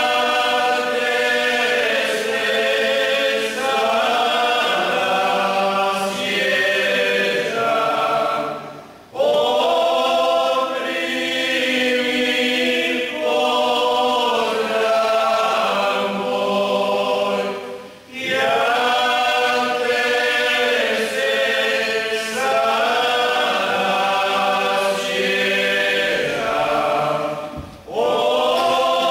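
Male vocal group of seven singing a Lenten church hymn a cappella, in long sustained phrases with a short break for breath about every nine seconds.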